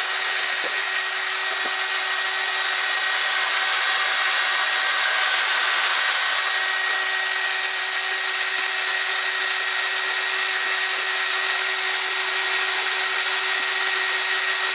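Power drill running at a steady speed with a constant whine, a new bit cutting into a damaged cylinder head bolt under light pressure with oil as lubricant. The drill stops abruptly near the end.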